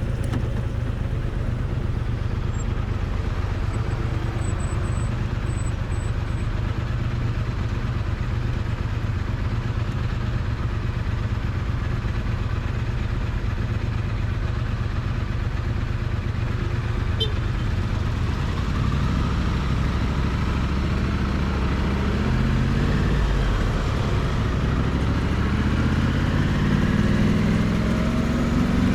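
Triumph Bonneville T100's parallel-twin engine and exhaust, recorded close to the exhaust, running steadily at low revs. About two-thirds of the way through the engine speed starts to climb, rising unevenly toward the end.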